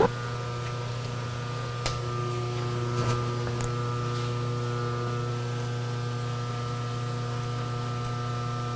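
Steady electric hum, with several steady tones over a low drone, from a running shop machine's motor. A couple of light clicks come about two and three seconds in.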